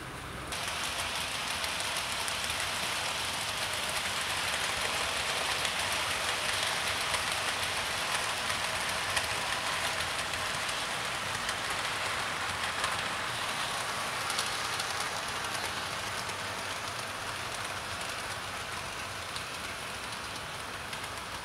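00 gauge model train with a long rake of coaches rolling along the track: a steady hiss of many small wheels on the rails, with a few faint ticks. It starts suddenly about half a second in and eases off slowly toward the end.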